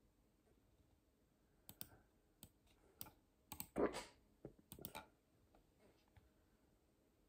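A person's hiccup, one short, sharp sound in the middle, among a cluster of soft clicks over a few seconds.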